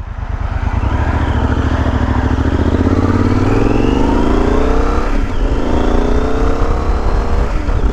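Yamaha Super Ténéré's 1,200 cc parallel-twin engine pulling away and accelerating through the gears. The engine note rises steadily, drops at an upshift about four to five seconds in, then climbs again before another shift near the end.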